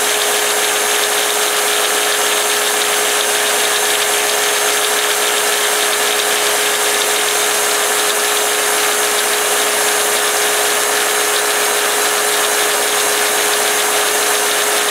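Belt grinder with an 800-grit slack belt running steadily for knife sharpening: a constant hum with an even high hiss, unchanging throughout.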